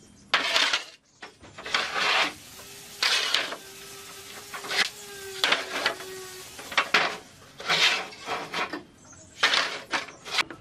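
Hand work on wood: a series of about a dozen short, irregular scraping and knocking strokes, each under a second long, with a faint steady tone under the middle part.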